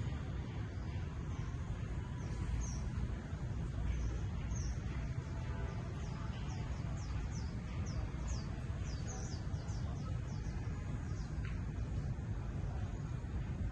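Small bird chirping in short, high, downward-sliding notes, scattered at first, then a quick run of about three a second from about six to nine seconds in, over a steady low rumble.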